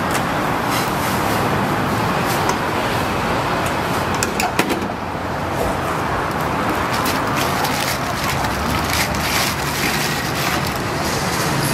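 Steady street traffic noise, with a few short sharp clicks about four to five seconds in.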